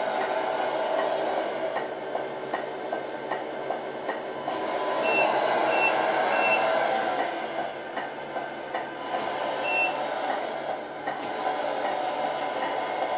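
Simulated truck diesel engine sound from the Tamiya MFC-03 multifunction unit, played through the 1/14 Scania R620 model's small speaker as the truck drives, louder for a couple of seconds near the middle. Three short high beeps come about five seconds in, and one more near ten seconds.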